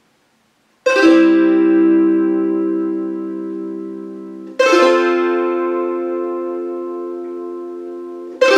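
Lithuanian traditional kankles, a wooden box zither, strummed in slow single chords. A chord starts about a second in, another about four seconds later, and a third at the very end, each left to ring and slowly die away. The left-hand fingers rest on some strings to mute them and shape each chord.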